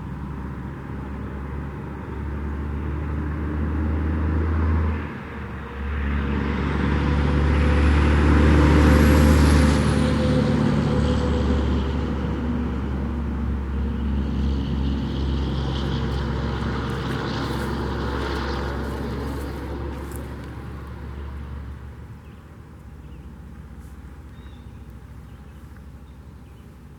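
A road vehicle passing, its engine rumble and road noise building to a peak about nine seconds in, with a brief dip about five seconds in, then fading away over the following ten seconds or so.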